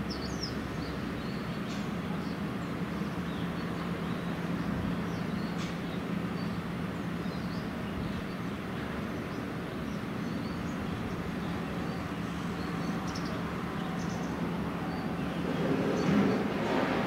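Steady low drone of a passing gut ship's diesel engine over a haze of background noise, with faint small-bird chirps. The noise swells briefly near the end.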